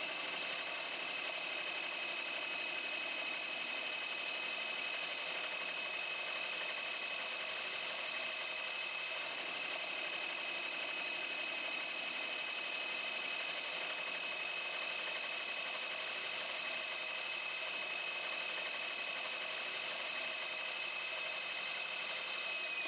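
A Morse hole saw cutting through metal in a drill press: a steady high-pitched whine over a mechanical hum, unchanging throughout.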